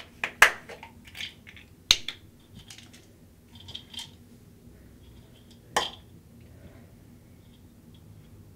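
Hands handling a small object: a few sharp clicks, the loudest about half a second in and again near six seconds, with soft scraping and rustling between them, over a faint steady low hum.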